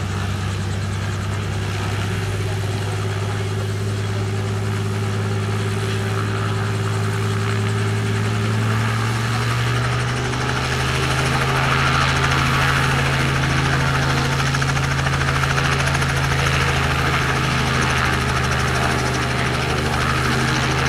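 Robinson R44 helicopter running on the ground with its rotors turning: a steady drone from its Lycoming six-cylinder piston engine and rotor. About ten seconds in the pitch steps up and a whooshing hiss grows louder.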